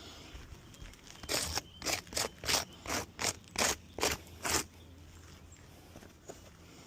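A run of about nine short scrapes on worn, granule-bare asphalt shingles, roughly three a second, starting about a second in and stopping about four and a half seconds in.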